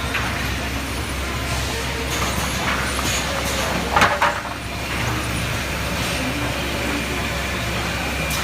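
Sawmill machinery running steadily with a low hum and a dense noisy rumble, with a pair of sharp clanks about four seconds in.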